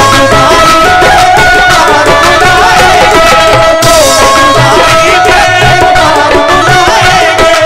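Live qawwali music: harmoniums holding steady notes under tabla drumming, with voices singing over them.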